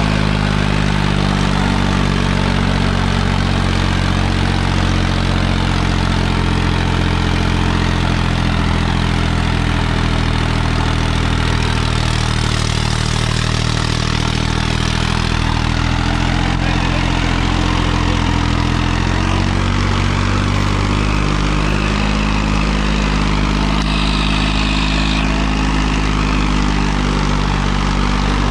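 Farmtrac 60 tractor's diesel engine running steadily under heavy load as it pulls a disc harrow weighted with three men, its note shifting slightly about two-thirds of the way through.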